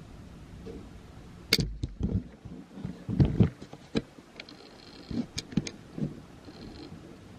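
Handling noise from the phone recording on the desk as it is moved: a run of irregular knocks and clicks, the loudest about a second and a half in, with more scattered through the rest.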